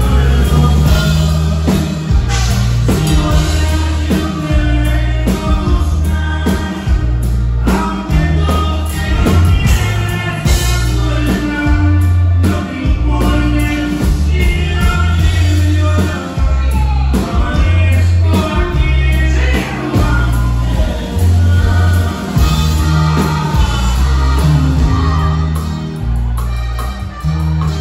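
Live norteño band playing a song with a lead vocal, accordion, guitars, drums and a stepping bass line.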